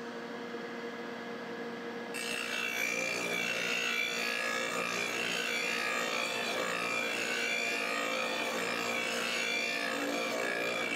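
MAG-8200 lawn mower blade sharpener's 1-inch grinding wheel spinning on its electric motor with a steady hum. About two seconds in, the mower blade is pressed to the wheel and a loud, steady grinding starts as the cutting edge is sharpened.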